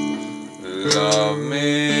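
Electric guitar chords strummed and left ringing, with a man singing over them from about half a second in.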